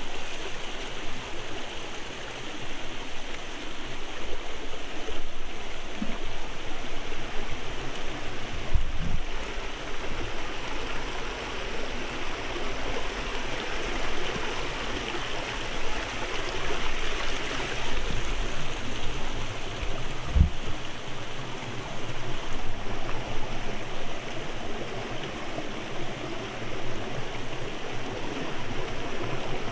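Shallow rocky stream with small cascades, water rushing and splashing steadily over stones, with a brief low thump or two.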